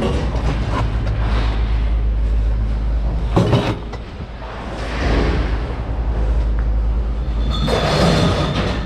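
Scrap metal being thrown into a bin over a steady low rumble, with a sharp clang about three and a half seconds in and a longer metallic clatter with some ringing near the end.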